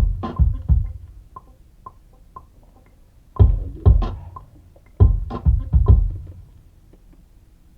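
Sampled electronic drums being played in uneven groups of two or three heavy low kick-like hits with sharp clicks, and a few light ticks in between. The hits stop about six and a half seconds in.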